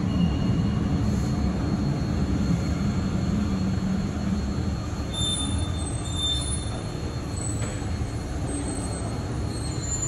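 Soekarno-Hatta Airport Skytrain people mover running along its elevated guideway, heard from inside the car: a steady low rumble, with short high whines from about halfway through.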